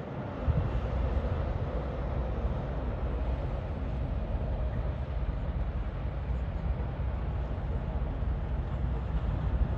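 Semi truck's diesel engine running as the tractor-trailer pulls slowly past, a steady low rumble that comes up about half a second in.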